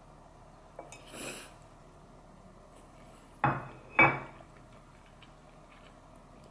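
Two sharp clinks of tableware at the meal, about half a second apart, each ringing briefly, with a short airy rush about a second in.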